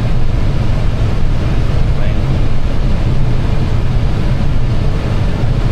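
Steady low rumble of airflow and engines inside an Airbus airliner's cockpit on final approach.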